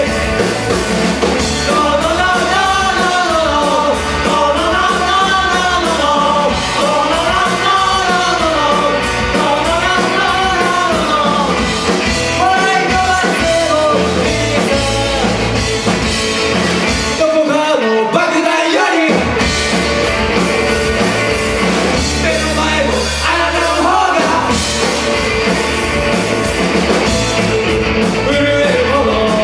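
A punk rock band playing live: electric guitars, electric bass, drums and a male lead vocal, through the venue's PA. A melodic phrase repeats about every two seconds early on. About seventeen seconds in, the bass and drums drop out for about two seconds, then the full band comes back in.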